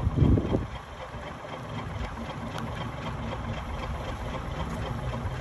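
Crane engine running steadily as the crane hoists the boat, a low continuous rumble with a brief louder low surge right at the start.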